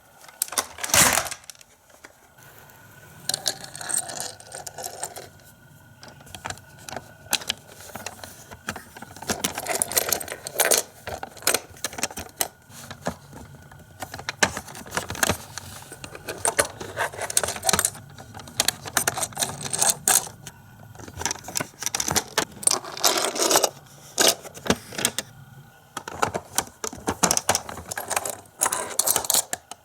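Small plastic toy parts of a Micro Machines playset clicking and rattling as they are handled, in clusters of short clicks, with a sharp click about a second in.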